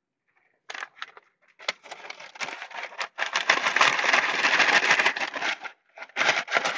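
A bag crinkling and rustling as it is handled and chicken tenders are packed into it: a few short rustles about a second in, then a dense stretch of crinkling through the middle, and more rustling near the end.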